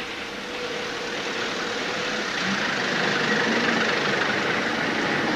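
Black London taxi's engine running as the cab draws up to the kerb, getting louder over the first few seconds as it comes close, then holding steady.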